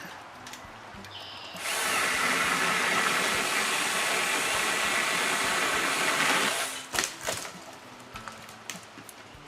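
Battery-powered electric pole saw running for about five seconds, its chain cutting into a dead tree limb, then stopping suddenly. A few sharp knocks follow soon after.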